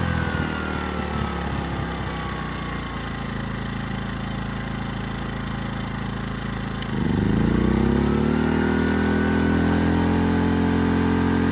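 Westinghouse iGen2000 inverter generator engine slowing and running lower for several seconds, then, right after a click about seven seconds in, revving up sharply and settling into a louder, higher steady run as it takes up the 1500-watt heat gun load.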